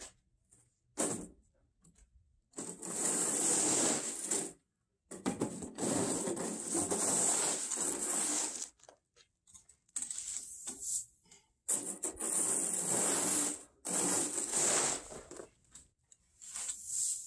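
A wide snow-pusher blade scraping across concrete and shoving loose gravel, the stones rattling and sliding. It comes as a series of pushes a second to a few seconds long, with short pauses between them.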